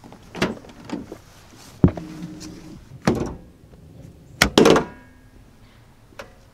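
Ram 1500 pickup's driver door latch clicking open, followed by a series of clunks and knocks as the hood release lever under the dash is pulled. The loudest is a double clunk about four and a half seconds in, the hood latch popping.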